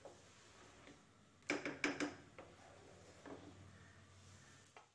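Wooden spatula scraping and knocking against a nonstick pan as a thick yam mash is stirred: a few faint scrapes and taps, most of them about a second and a half to two seconds in, with a couple more later.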